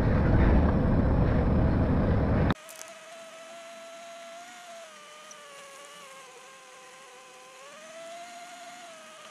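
Loud background music that cuts off abruptly about two and a half seconds in, leaving a faint buzzing whine with several overtones that drifts slowly up and down in pitch: the low-loader truck running as it creeps along, heard inside the cab.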